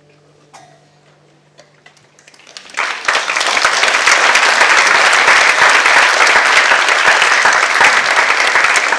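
Audience applause breaking out about three seconds in and going on loud and steady, after a few scattered early claps. Before it, the last held low note of the dance music sounds and then fades out.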